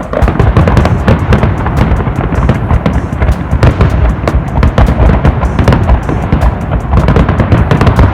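Fireworks display with many bangs and crackles in rapid succession over a continuous low rumble, and music playing along with it.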